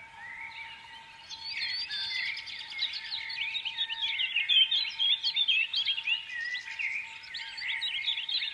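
Many small birds chirping together in a dense, continuous chorus of short rising and falling chirps, which grows fuller about a second in.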